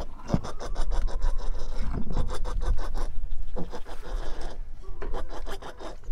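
A quick, irregular series of scratching and rubbing noises with a low rumble underneath.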